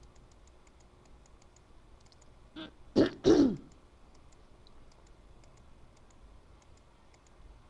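Faint clicking of a computer mouse's scroll wheel as a page is scrolled. A woman clears her throat about three seconds in, the loudest sound.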